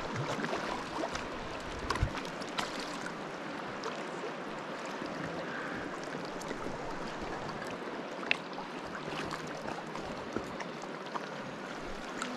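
Creek water flowing and rippling around a kayak as a steady rush, with a few small clicks and knocks, the sharpest about two seconds in and another about eight seconds in.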